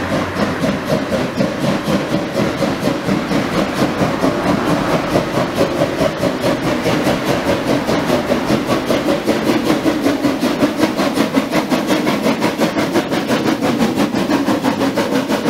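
Narrow-gauge steam locomotive 99 4011-5 pulling away with its train, its exhaust beating in a fast, even rhythm as it passes close by.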